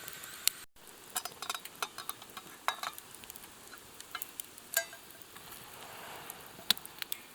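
Food frying in a pan over a campfire: a steady sizzle with irregular sharp pops and crackles.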